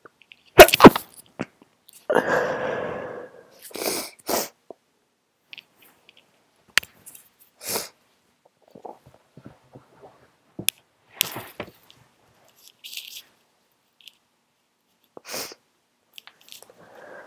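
A person with a head cold sneezing: a sharp stifled sneeze in two quick bursts just under a second in, the loudest sound here, followed by a longer noisy breath out. Short, quieter sniffs and small clicks are scattered through the rest.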